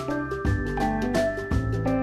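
Background music: an upbeat instrumental with a low beat about once a second and quicker light percussion ticks over it.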